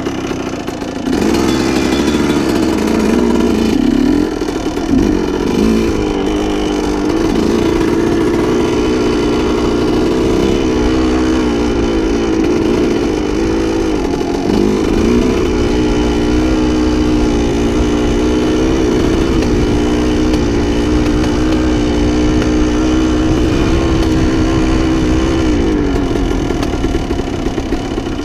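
A 1987 Yamaha YZ125's single-cylinder two-stroke engine pulls away about a second in, then runs under throttle, its pitch rising and falling with throttle and gear changes. The pitch drops near the end as the rider eases off.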